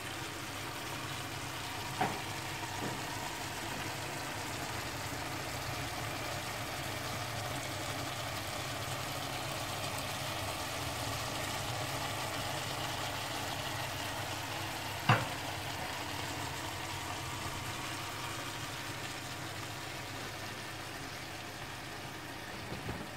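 Saç kavurma of meat, peppers, tomatoes and onions sizzling steadily in a wide saç pan on a gas stove, over a low steady hum. Two sharp clicks stand out, one about two seconds in and one about fifteen seconds in.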